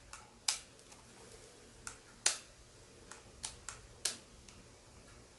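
Irregular sharp clicks and taps of a small plastic Canon ZR800 camcorder being handled, about eight in all, the loudest a little over two seconds in.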